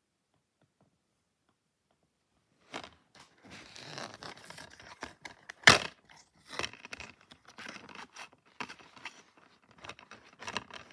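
Plastic DVD keep case being opened and the disc handled, starting a few seconds in. Scraping and rustling with scattered clicks, and one sharp snap about halfway through, the loudest sound.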